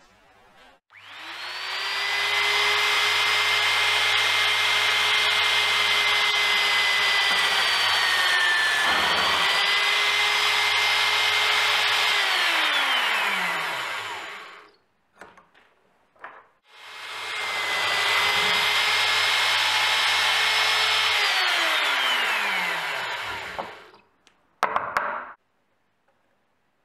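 Drill press running with a spade bit boring into a curly birch block. It runs twice, each time starting up with a steady whine and then winding down with a falling pitch. During the first run the pitch sags briefly about eight seconds in, and a couple of short bursts come near the end.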